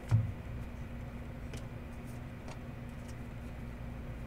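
A single dull thump just after the start, then two faint clicks, over a steady low electrical hum.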